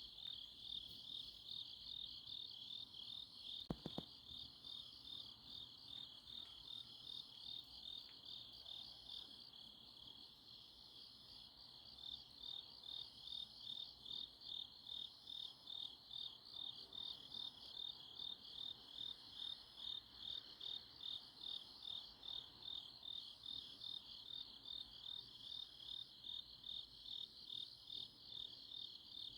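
Autumn-night grass insects, crickets among them, chirping in a steady high trill, with a pulsing chirp about twice a second through the second half. A single short knock about four seconds in.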